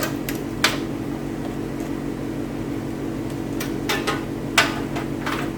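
Steady machine hum with several light clicks and knocks of computer hardware being handled.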